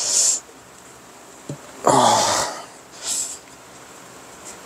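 A man straining with effort, breathing out hard in short bursts. The loudest, about two seconds in, is a voiced grunt, and a light click comes just before it.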